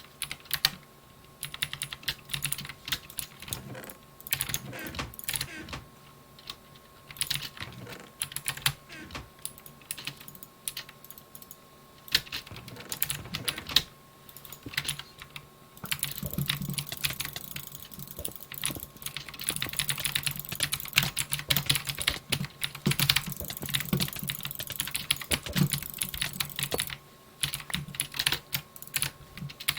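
Computer keyboard and mouse in use: irregular clacking keystrokes and clicks, in bursts of fast typing, busiest in the second half. A faint steady hum runs underneath.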